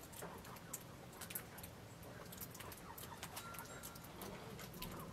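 Faint outdoor quiet with scattered soft ticks and one brief, faint bird-like chirp a little past three seconds in.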